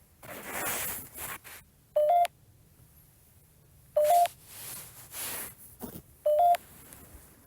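Phone app beeping: a short two-note electronic beep, the second note slightly higher, sounded three times about two seconds apart, with soft rustling noises in between.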